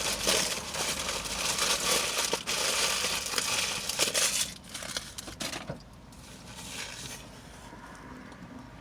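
Paper food wrapper crinkling and rustling close to the microphone, with many small crackles, for about five and a half seconds before dying down to a faint rustle.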